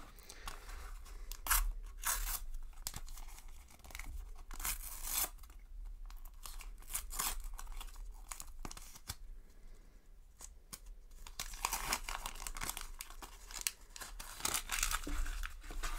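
A Panini sticker packet being torn open by hand: irregular ripping and crinkling of the paper wrapper, in short bursts with pauses between.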